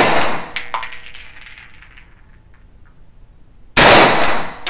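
Two shots from a Kel-Tec Sub 2000 carbine in .40 S&W, about four seconds apart, one at the very start and one near the end, each echoing in the indoor range. After each shot comes the light metallic tinkle of the ejected brass case landing.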